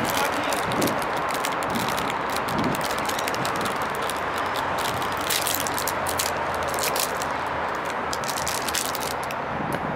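Steady outdoor background noise with many small crackles and clicks, and a faint low hum about halfway through.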